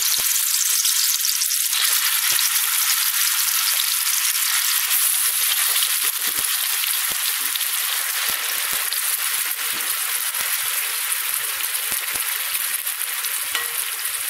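Coarsely ground dried dates (chhuhara) sizzling as they fry in hot ghee in a kadhai, a steady hiss, with faint scattered clicks joining about halfway through.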